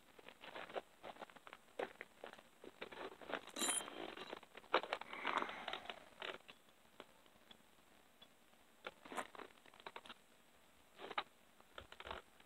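Scattered light metallic clicks and scrapes, busier in the first half and sparser after: the small parts of a chainsaw chain repair, tie strap and drive link, being handled and fitted with needle-nose vise grips.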